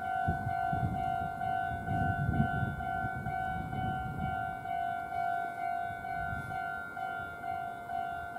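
Japanese railway level-crossing warning bell ringing its repeated electronic "kan-kan" tone, about two and a half strokes a second, over a low rumble.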